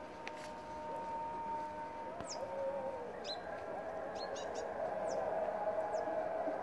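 A large bumblebee buzzing as it works almond blossoms close by, a steady hum that shifts in pitch about halfway through and grows louder. A small bird chirps several times in short high calls.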